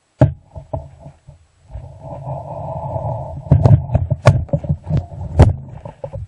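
Close handling of a plastic bottle rocket on its launcher: a string of knocks and thumps, with a rushing noise for about a second and a half a couple of seconds in.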